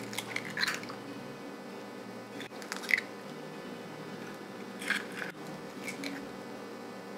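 Four eggs cracked open by hand over a glass mixing bowl, one after another: short crunches of eggshell, and the eggs drop with a soft squish into creamed shortening and sugar.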